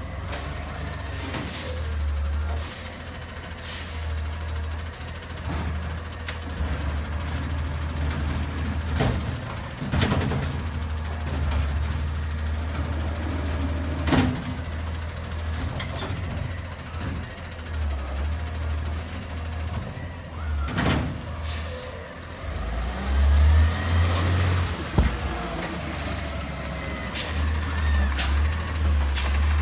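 Autocar ACX garbage truck with a McNeilus ZR automated side-loader body, its engine running with a deep, steady rumble as it drives, slows and pulls up to a cart. The rumble swells and its pitch rises and falls for a couple of seconds near the middle. Air brakes hiss and a few sharp clacks are heard.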